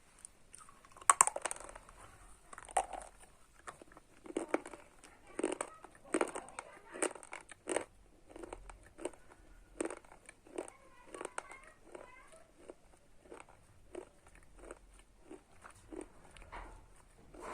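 Close-up biting and crunchy chewing of slate pencils: a sharp first bite about a second in, then repeated gritty crunches roughly once a second that become smaller and quicker later on.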